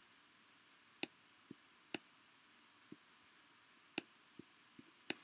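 Faint, sharp clicks of a stylus tip tapping down on a tablet's glass screen while drawing, about nine at irregular intervals over quiet room tone.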